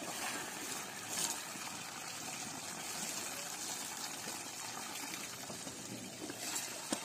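Water running and splashing steadily over an elephant being bathed, with one brief louder splash about a second in.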